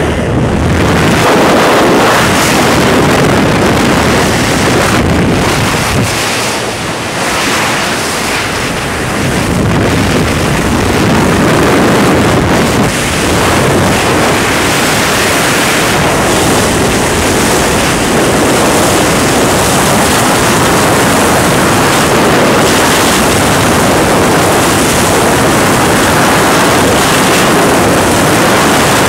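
Freefall wind rushing over a helmet-mounted camera's microphone during a skydive: a steady, loud, even noise that eases briefly about six to nine seconds in.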